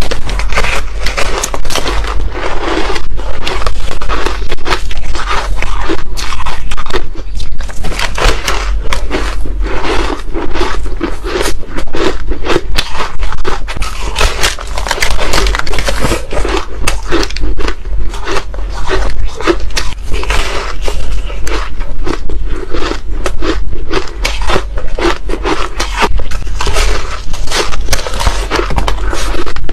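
Close-miked biting and chewing of frozen crispy ice chunks: a continuous run of crisp, crackling crunches, one bite after another.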